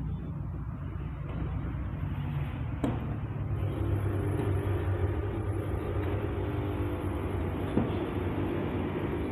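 Low, steady rumble of a running vehicle, with a faint hum swelling in about three and a half seconds in and fading near the end, and a single click about three seconds in.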